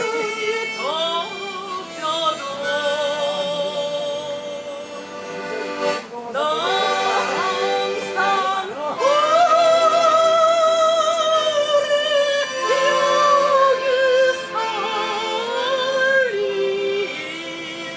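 A woman singing a Korean song with wide vibrato and long held notes, over instrumental accompaniment.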